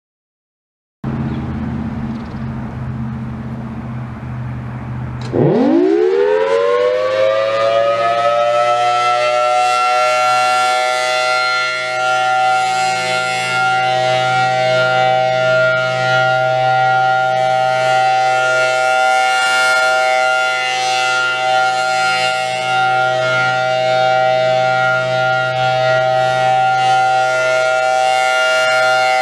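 Thunderbolt 1000T outdoor warning siren starting its alert signal. A low hum starts about a second in. About five seconds in the siren winds up, its pitch rising quickly and settling into a steady, loud tone that holds as the head rotates at 8 RPM.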